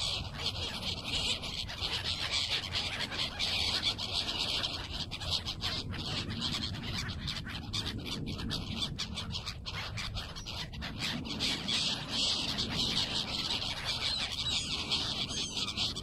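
A flock of gulls calling overhead, many calls overlapping into a continuous din, over a low steady rumble.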